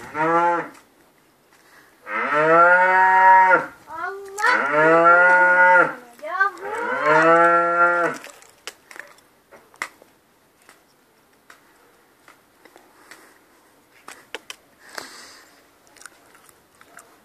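Young calf mooing: one short call, then three long calls in quick succession, each rising and then falling in pitch.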